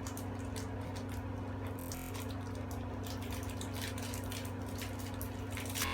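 Plastic packet of craft beads crinkling and clicking as it is worked open by hand, with scattered small clicks and a sharper crack just before the end, over a steady low hum.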